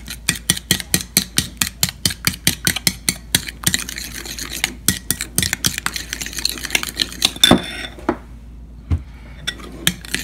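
Metal spoon stirring a thick mayonnaise-based cocktail sauce in a glass bowl, clinking and scraping against the glass in quick strokes of about four or five a second. After a louder clink about seven seconds in, the stirring briefly goes quiet, then picks up again near the end.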